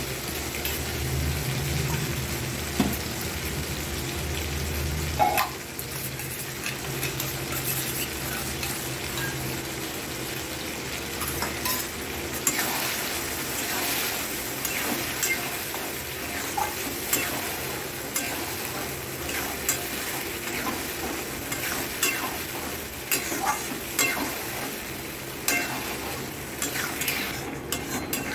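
Vegetables and sauce sizzling in an aluminium kadai while a metal spatula stirs them, scraping and clicking against the pan again and again.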